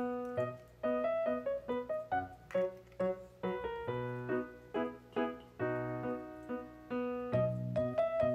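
Background piano music: a light melody of separate notes at a steady, unhurried pace.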